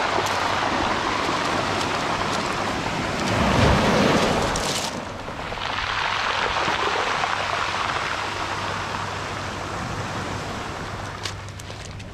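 Sea waves surging and washing onto a beach, with the loudest surge about four seconds in and a gentler swell after it.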